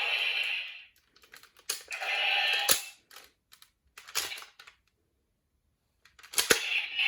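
Irregular sharp clicks and snaps between short hissing bursts, with a second of near silence about two-thirds through and two sharp snaps just after it.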